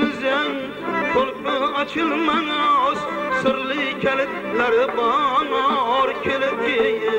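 A man singing a Khorezm Uzbek folk song in a wavering, heavily ornamented style. Instrumental accompaniment holds a steady drone note under the voice.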